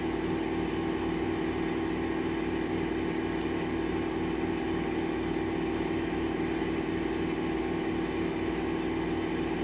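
Steady machine hum with a strong constant tone and a regular low pulsing underneath, holding even throughout.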